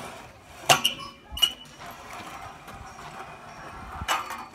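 Four short, sharp clinks and knocks: two close together under a second in, one about half a second later, and one near the end.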